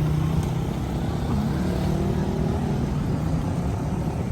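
Steady low rumble of outdoor city background noise, such as passing traffic.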